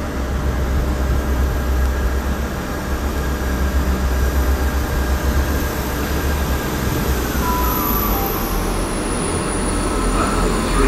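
Two coupled Class 159 diesel multiple units pulling out and passing close by, their diesel engines running with a heavy, steady low rumble. A faint tone dips briefly in pitch about seven and a half seconds in.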